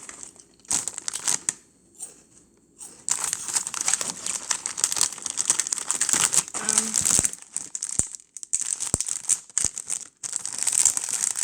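Plastic packaging crinkling and rustling as it is handled. There are a couple of brief rustles at first, then steady crinkling from about three seconds in, with a few sharp clicks near the end.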